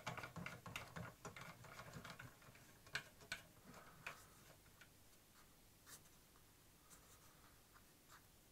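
Faint clicks and taps of small CNC router kit parts being handled by hand, close together for the first couple of seconds, then a few scattered single clicks.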